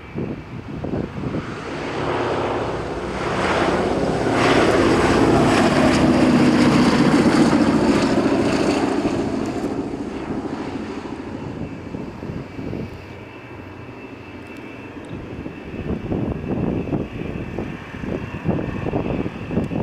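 Boeing B-17 Flying Fortress's four Wright Cyclone radial piston engines droning as the bomber comes in to land, growing louder as it passes close, loudest about five to eight seconds in, then fading away.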